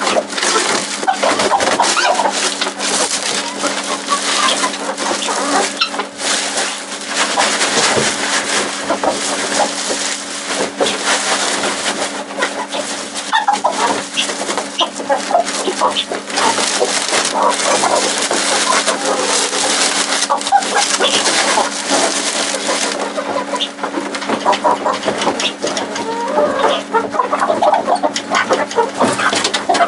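Chickens clucking and calling, many at once, over a steady low hum.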